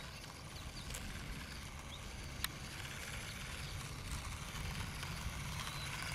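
Small remote-control toy car driving over a rough asphalt path, its plastic wheels and small electric drive giving a steady rolling noise that grows louder from about halfway, with a couple of sharp clicks and low wind rumble on the microphone.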